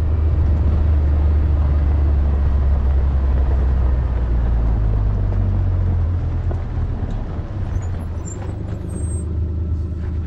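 Steady low rumble of a vehicle rolling slowly over a rough desert dirt track, easing a little in the second half.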